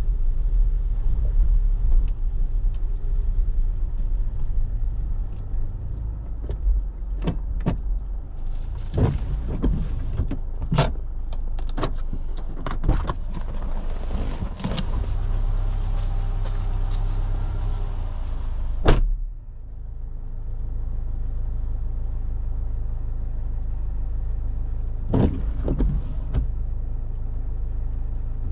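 A car driving in a rainstorm, heard from inside: a steady low rumble of engine and tyres, with scattered sharp knocks and a hiss through the middle that cuts off suddenly on a loud knock, after which only the rumble remains, with two more knocks near the end.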